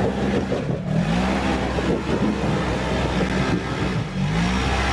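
Off-road 4x4's engine revving under load, its pitch rising and falling over and over.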